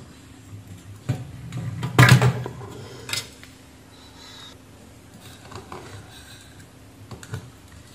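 Scattered clicks and light clatter of wires, plug connectors and metal parts being handled on a workbench, with one louder knock about two seconds in.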